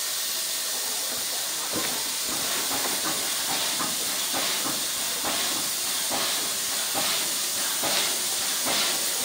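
Steam locomotive 52 7596 working, with a steady hiss of steam. Its exhaust beats start about two seconds in and come at roughly two a second.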